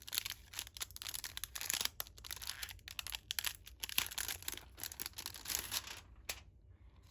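Plastic shrink-wrap being torn and crinkled off a CD album, a dense crackling rustle that stops about six seconds in, followed by a single click.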